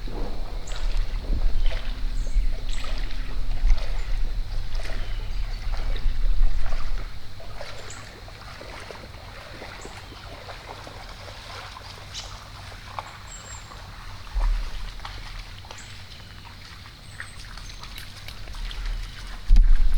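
Outdoor woodland ambience by a creek: a low rumble, louder for about the first eight seconds and then quieter, with scattered faint ticks, rustles and a few brief high chirps, and a sudden loud low thump at the very end.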